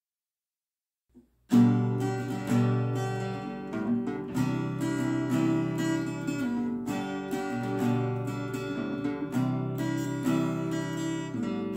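Steel-string acoustic guitar played in chords, starting about a second and a half in after silence, with picked and strummed strokes ringing on.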